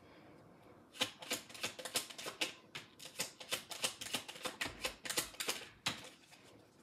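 Tarot cards being shuffled by hand: a quick, irregular run of sharp card clicks and slaps starting about a second in and stopping shortly before the end.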